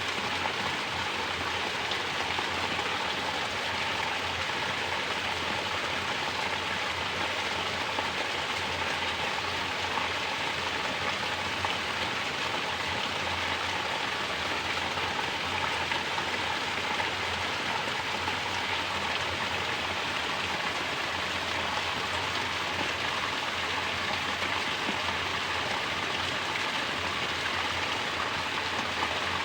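Mountain water from a natural shower falling and splashing steadily, an even rush with small spatters now and then.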